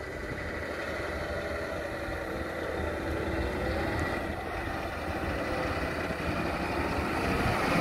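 John Deere 260E articulated dump truck driving, its diesel engine running steadily and growing louder as the truck draws closer.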